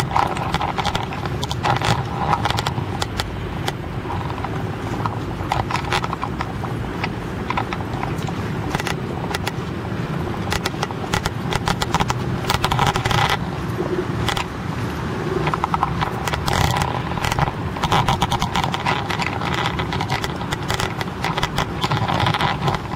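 Handling noise from a handheld camera carried along a city street: frequent clicks and rustles over a steady low rumble of street traffic.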